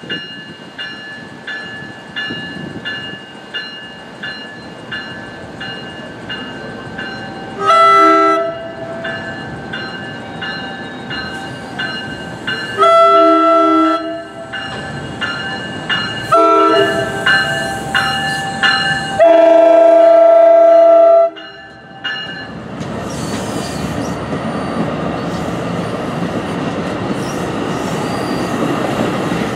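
Grade-crossing warning bell ringing steadily while an NJ Transit Multilevel cab car sounds four horn blasts, the last the longest, as the train approaches the crossing. From about two-thirds of the way through, the train rumbles past with wheel noise on the rails.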